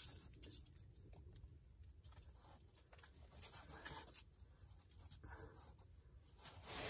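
Near silence, with faint rustling and a few soft clicks of hands working a hook out of a fish's mouth.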